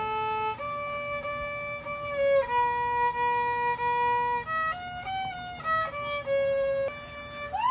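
Solo violin playing a slow melody of sustained bowed notes, one held for about two seconds in the middle.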